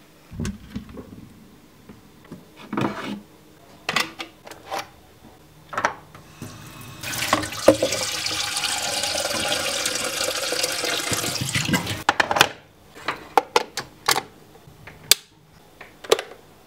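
Tap water running into an electric kettle as it is filled, a steady rush for about five seconds in the middle. It is surrounded by short knocks and clatter of the kettle being handled, and near the end the kettle's rocker switch clicks on.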